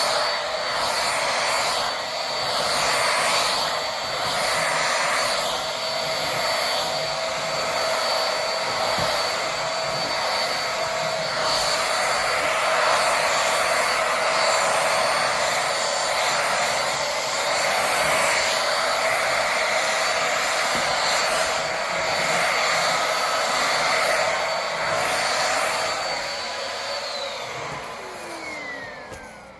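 Corded vacuum cleaner with a roller brush head running, its steady motor whine swelling and easing every couple of seconds with back-and-forth strokes. Near the end it is switched off and the motor whines down.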